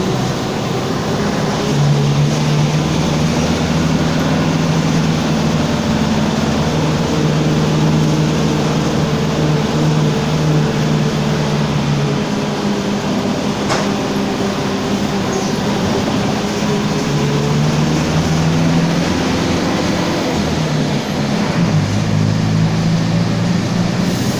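Mercedes-Benz OF-1722M bus under way, its diesel engine running and changing pitch several times as the bus speeds up and slows. Under it runs a growling rear differential. A single sharp click comes about fourteen seconds in.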